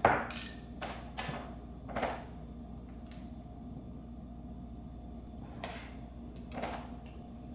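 Metal measuring spoon and glass spice jars clinking and tapping as spices are measured into a stainless cooker pot: about eight short knocks spread over the seconds, the loudest at the very start, a few with a brief ring.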